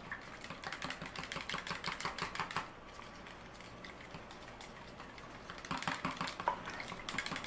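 A small metal spoon stirring liquid in a plastic measuring pitcher, clinking rapidly against the sides. The ticking stops for a few seconds in the middle and then resumes.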